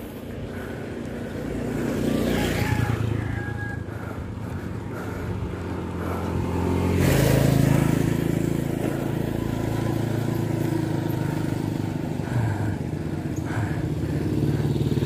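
Motorcycle engine running as it climbs a paved hill road, swelling louder about two seconds in and again about seven seconds in.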